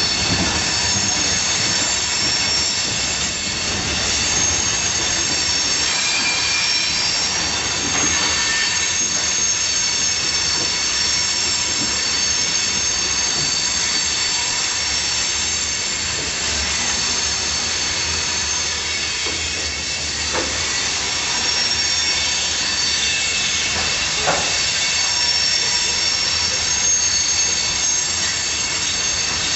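Buffalo and Pittsburgh salt freight train rolling past, its steel wheels screeching steadily in several high, shifting pitches as the cars go over a switch, with a few faint knocks.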